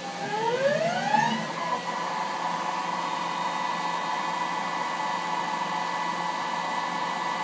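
Hwacheon Hi-Tech 700 CNC lathe spindle speeding up to a higher set speed: its whine rises in pitch over the first second or so, then holds steady and high-pitched while the spindle runs at speed.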